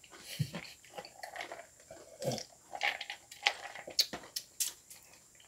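Ice cubes clicking and rattling in a clear plastic cup, with sipping and mouth sounds as a cocktail is drunk. There are irregular small ticks throughout and a few sharper clicks near the end.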